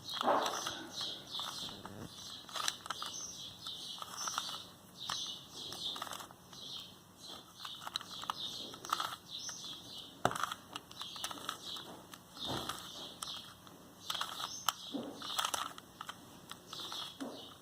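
3x3 Rubik's cube being twisted by hand: a run of short, irregular clicks and scrapes as its layers turn.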